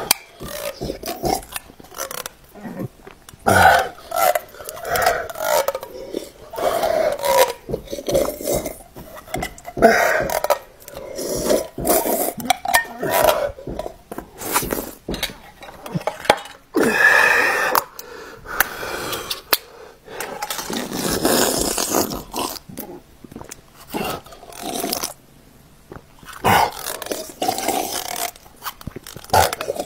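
A man gulping and slurping chicken noodle soup straight from the tin can, with loud swallowing and heavy breathing in irregular bursts. A metal spoon scrapes inside the can partway through.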